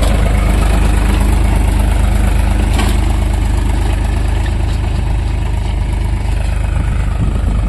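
Tractor's diesel engine running steadily as it pulls a seed drill that is sowing.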